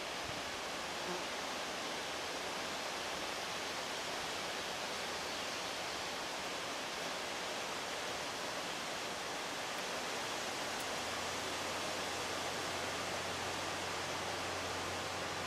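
Steady, even outdoor hiss with no distinct events; about eleven seconds in a low steady hum joins it and keeps going.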